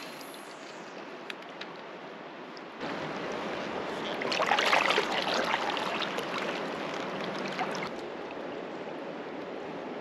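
River current rushing and splashing around a kayak's hull as a paddle works the water. The water sound jumps louder about three seconds in, swells with splashing in the middle, and drops back suddenly near eight seconds.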